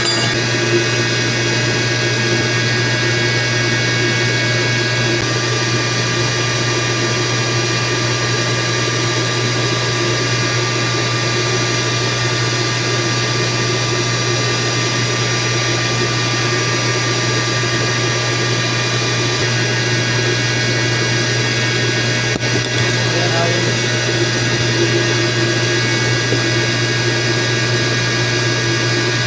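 Steady hum of running electric pump motors: a deep constant drone with several thin steady whining tones above it.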